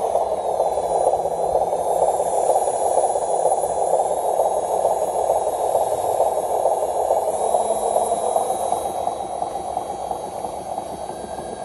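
Radio-controlled model truck's electric motor and gearbox whirring steadily as it hauls a loaded trailer through dirt, with a faint high whine that drifts up and down in pitch. The sound eases off somewhat near the end.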